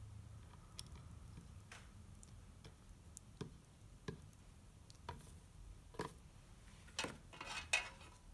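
Faint, irregular small clicks and taps of a soldering iron working the solder seam along the roof ridge of a stained glass piece, with a denser cluster of taps about seven seconds in.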